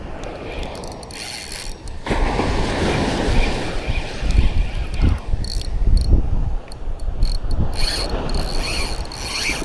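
Spinning fishing reel being cranked, its gears ticking, over a rushing noise that grows louder about two seconds in.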